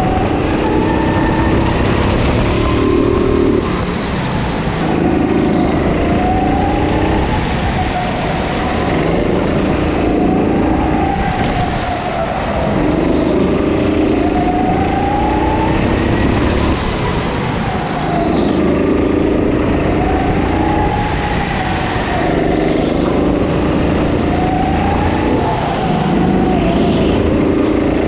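Go-kart engine heard from on board, revving up along the straights and dropping back as the kart slows for the corners, the pitch rising and falling about every two to three seconds.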